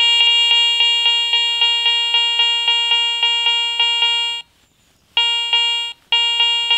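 Garrett ACE 400i metal detector sounding its target tone, a loud buzzy tone pulsing about four times a second: it is detecting a dog tag held over its standard search coil. The tone cuts out about four and a half seconds in, then comes back twice.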